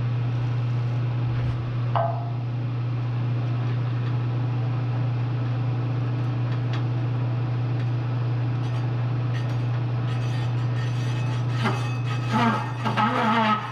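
A Bridgeport milling machine runs a large bi-metal hole saw into a steel tube with a steady, loud hum. There is a sharp click about two seconds in, and uneven rhythmic knocking starts near the end, which fits the saw chattering in the cut.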